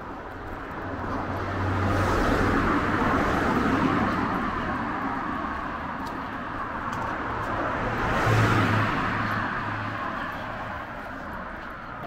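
Two cars driving past on a city street, each swelling in and fading away with tyre and engine noise: one passes between about two and four seconds in, and a second, sharper pass comes about eight seconds in.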